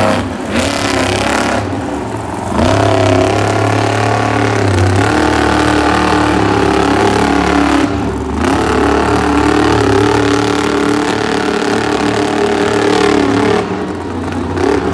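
Avenger monster truck's supercharged V8 revving hard during a freestyle run, its pitch climbing and falling again and again with the throttle, briefly easing off about two seconds in and again near the end.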